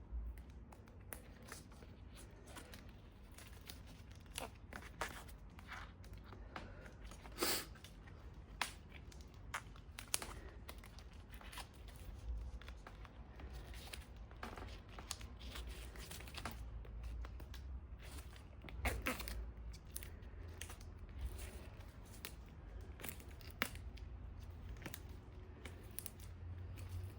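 Bicycle handlebar tape being pulled, stretched and wound around a drop handlebar: irregular crinkling and tearing, with a few sharper clicks.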